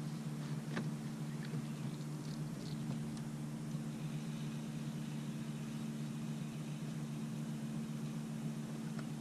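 Boat motor running steadily with a constant low hum, plus a few light clicks in the first couple of seconds.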